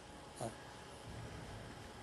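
A sleeping dog snoring, one short, loud nasal snore about half a second in. She has trouble breathing through her nose, which makes her snore.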